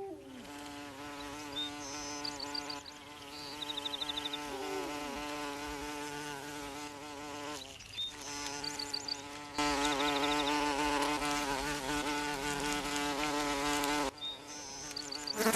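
Animated insect's wing buzz: a steady pitched drone with many overtones that bends in pitch now and then. It breaks off about halfway, comes back, and is louder for a few seconds near the end. Short, faint, high twittering trills recur a few times over it.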